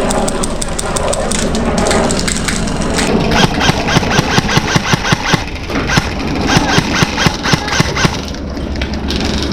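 Airsoft guns firing: rapid, dense clicking shots, with a regular run of louder single shots, a few each second, through the middle.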